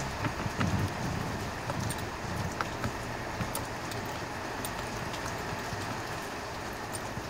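Hands working the blower motor resistor's wiring connector and surrounding plastic behind a Jeep Commander XK's glovebox: scattered light clicks and rustling, with a few dull bumps in the first second or so, over a steady hiss.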